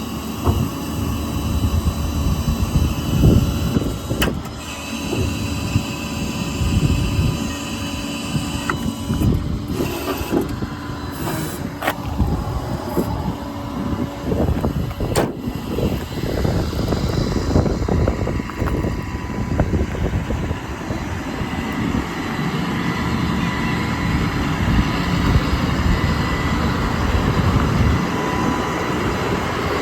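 Ford F550 service truck with its 6.7 Power Stroke diesel running, a steady low engine rumble mixed with frequent knocks and rattles.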